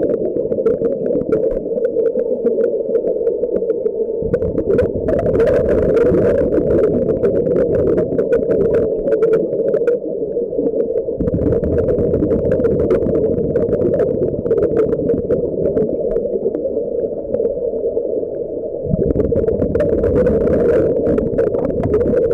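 Underwater sound of a scuba diver's regulator: long rumbling spells of exhaled bubbles every several seconds, over a steady hum.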